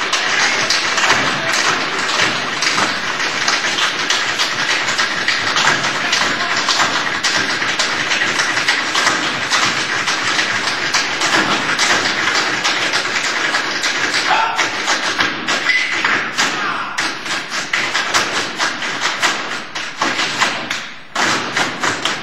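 A troupe of tap dancers in boots dancing in unison on a stage floor: a dense, fast clatter of taps and stamps, with a brief lull near the end.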